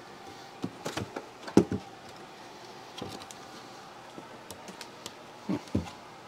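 Plastic lid of a battery case being worked loose and lifted off by gloved hands: a scatter of short clicks and knocks, the loudest about a second and a half in and two more near the end.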